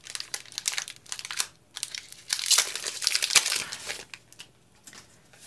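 Foil booster pack wrapper crinkling and crackling as it is torn open and the cards are pulled out. The crackling is thickest about halfway through and dies down near the end.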